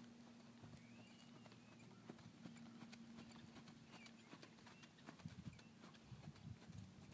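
Faint hoofbeats of a ridden horse on soft sand-and-dirt arena footing, louder low thumps starting about five seconds in as the horse goes by close.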